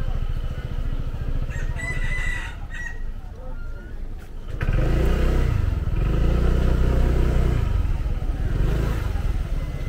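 Motor scooter engine running at low revs, then revving up and pulling away, louder from about halfway through. A brief high call rises above the engine about two seconds in.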